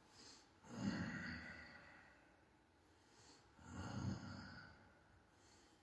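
A man breathing out audibly twice, each breath about a second long, with a faint intake before each.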